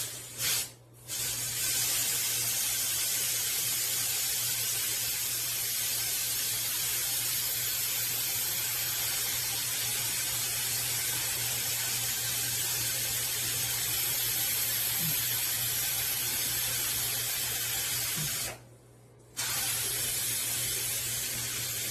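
Steam hissing steadily out of a Hestroney 12-quart stainless steel stovetop pressure cooker's release valve as the remaining pressure is vented by hand. The hiss cuts out briefly about half a second in and again near the end, then resumes.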